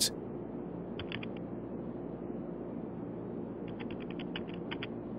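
Computer keyboard typing: a quick run of four keystrokes about a second in, then a longer run of about ten keystrokes near the end, as a user name is entered into a login box. A steady low hum runs underneath.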